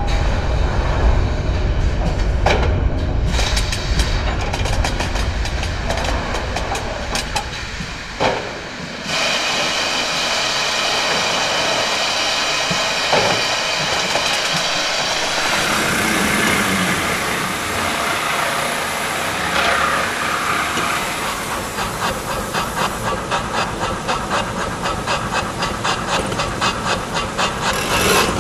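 Steam beam engine at work: at first a low rumble with scattered knocks, then a steady hiss of steam from about a third of the way in, and in the last third an even, quick rhythm of strokes, about two to three a second.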